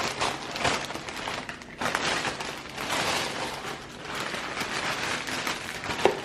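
Packaging crinkling and rustling as a package is torn open, a dense irregular crackle with a sharp click near the end.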